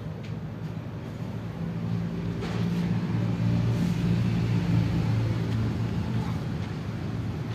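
A steady low engine hum that grows louder about two seconds in and eases off near the end.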